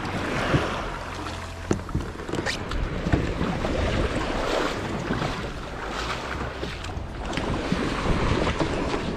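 Water splashing and lapping around a fishing kayak as it comes in to the beach, with scattered knocks and clicks and wind buffeting the microphone.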